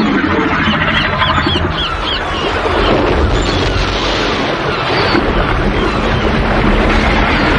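Loud dramatic sound-effect bed: dense rushing noise over a steady deep rumble, with a quick run of about six high, bird-like shrieks about a second in.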